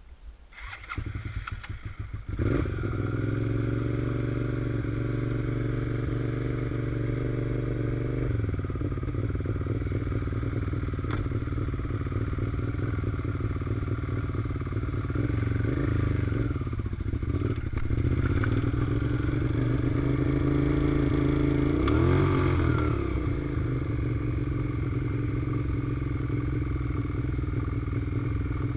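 2002 Suzuki SV650's 645 cc V-twin engine cranked on the electric starter and catching about two seconds in, then idling steadily. The idle drops about eight seconds in, and later the engine is revved briefly a few times, pitch rising and falling.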